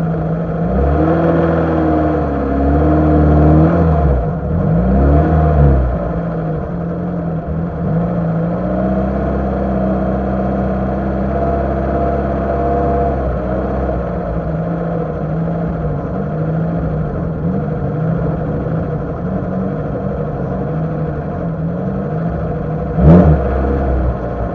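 Lada Niva's engine pulling off-road, heard from a camera on the bonnet. The revs rise and fall during the first few seconds, then hold fairly steady. A sudden loud thump comes near the end.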